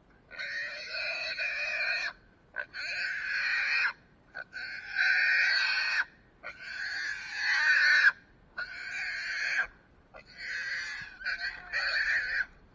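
Caught feral hog squealing in distress, about six long, high squeals of a second or two each with short breaks between them.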